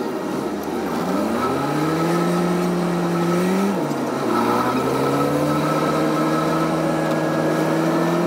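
Car engine accelerating: its pitch climbs, drops sharply at a gear change about four seconds in, then climbs again and holds steady.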